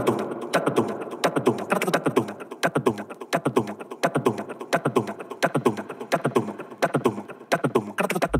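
Breakdown in a house track: a fast, clicky, beatbox-like percussion loop of short falling blips and clicks, with no kick drum or bass under it. Right at the end the deep kick and bassline drop back in, much louder.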